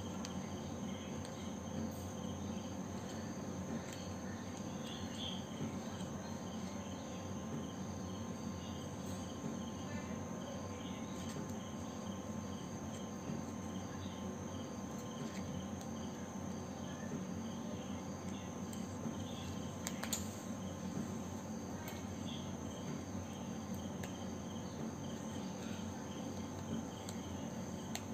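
Steady background hiss and hum under a faint, evenly repeating high chirping like an insect's. A few faint clicks come from scissors cutting thick paper.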